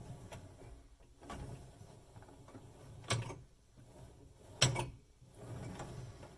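Knocks and clatter from a built-in dishwasher being handled, with three sharp knocks spaced about a second and a half apart, the last the loudest.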